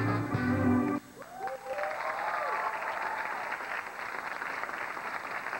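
A live band's piece stops about a second in, giving way to studio audience applause with a few cheering shouts in the first couple of seconds of it.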